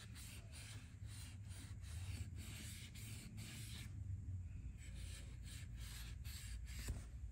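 Fine steel wool scrubbing the rusty inside of a small-engine carburetor float bowl: faint, quick scratchy strokes, about three a second, with a short pause partway through.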